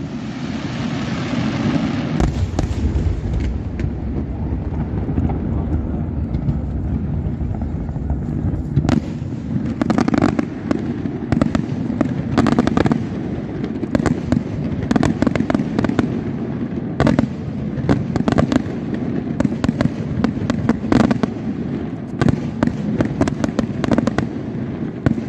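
Aerial fireworks display: a continuous run of shell bursts and bangs over a steady low rumble, with crackling in the first couple of seconds.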